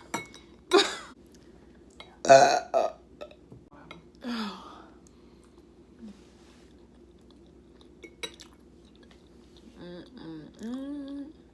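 Person burping loudly, with a few short burps in the first few seconds, the loudest about two seconds in.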